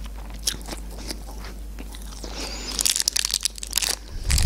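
Thin plastic wrapper being peeled off a crab stick, crinkling in a quick run of crackles starting about three seconds in, after a few faint clicks.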